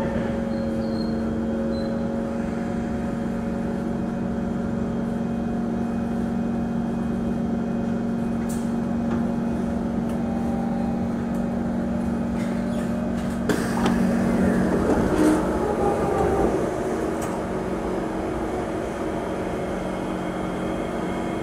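Singapore MRT train standing at the platform, its onboard equipment giving a steady hum. About thirteen seconds in, a sudden louder noise lasting a few seconds as the train doors and platform screen doors slide open.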